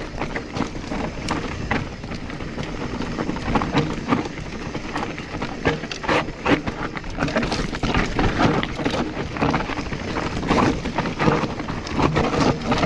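Specialized Stumpjumper EVO mountain bike rolling over a rough dirt trail: a steady crunch of tyres on dirt and gravel with constant irregular rattles and knocks from the bike and chain, and wind noise on a chest-mounted camera.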